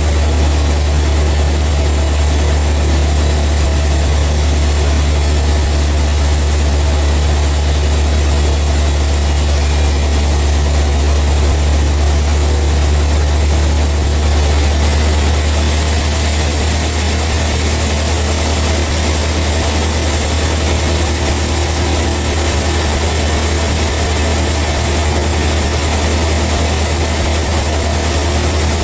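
A heavy engine running steadily with a constant low drone, unchanging throughout.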